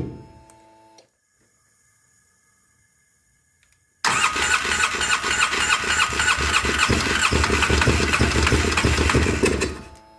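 2009 Polaris Sportsman 800 ATV's twin-cylinder engine dies in the first second. About four seconds in it is started again and runs roughly with a fast uneven pulse for about six seconds, then cuts out near the end. The owner takes the rough running for injectors gummed up by old fuel after months of sitting.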